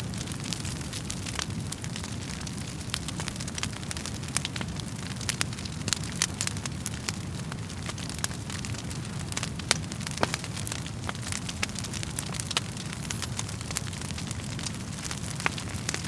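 Wood fire crackling in a fireplace: a steady low rumble of flames with frequent sharp, irregular pops and snaps, a few of them louder.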